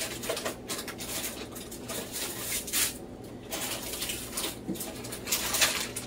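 Faint, scattered rustles and light knocks of kitchen items being handled.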